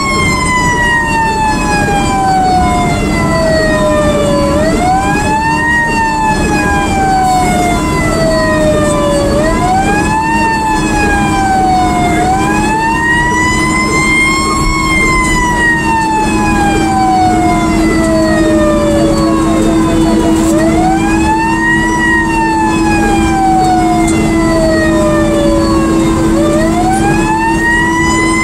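Fire engine siren heard from inside the cab, its pitch rising quickly and then falling slowly, five times over, above a steady low hum from the truck.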